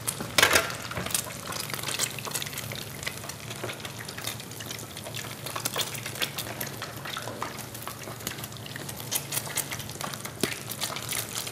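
Kitchen work sounds: scattered small clicks and knocks of utensils and bowls over a steady faint hiss and a low hum, with a sharper clatter about half a second in and another near the end.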